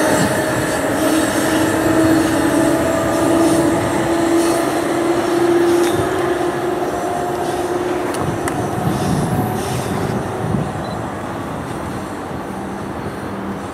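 Electric commuter train of bilevel coaches running over a bridge and moving away, its wheels giving a steady whine that drifts slightly in pitch and fades out about eight seconds in, leaving a steady rushing noise with a couple of sharp clicks.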